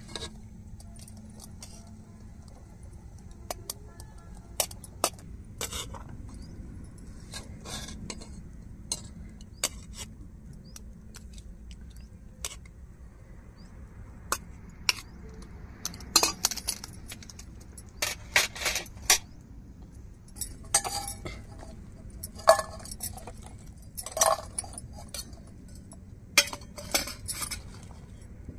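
A steel ladle and a stainless-steel lunch box clinking and scraping against a metal pot as cooked biryani is scooped and packed. The taps are scattered and sharp: sparse at first, and more frequent through the second half.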